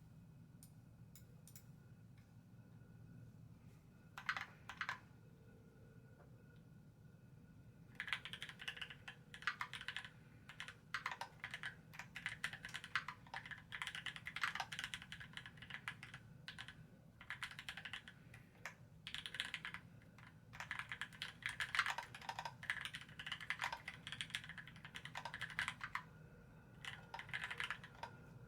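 Typing on a SQUARE.X 60% aluminium-case keyboard with Gateron Kangaroo tactile switches, filmed and lubed with Krytox 205g0, under GMK Noel keycaps. A couple of keystrokes come about four seconds in, then steady typing starts about eight seconds in, with a short pause near the end.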